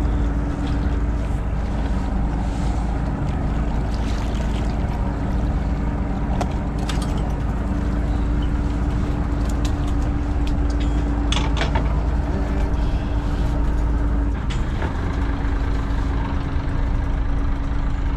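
Fishing boat's engine and gear running steadily while a longline is hauled in over the rail: a constant low hum with a steady tone whose pitch shifts about two-thirds through. A few sharp clicks and clanks of gear sound over it.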